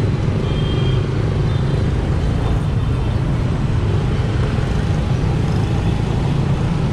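Motor scooter riding slowly through dense motorbike traffic: a steady low engine and road drone mixed with the hum of the surrounding motorbikes.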